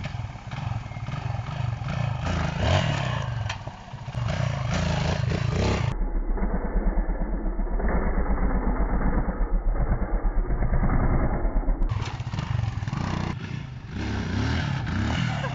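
Dirt bike engine revving up and down as the rider lifts the front wheel for a slow wheelie.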